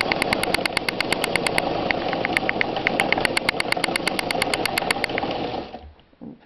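Vintage Japanese-made Sewmor class 15 sewing machine running on its electric motor, free-motion stitching with the feed dogs dropped and the presser-foot pressure released: a steady motor hum with quick, even needle ticks. It stops near the end.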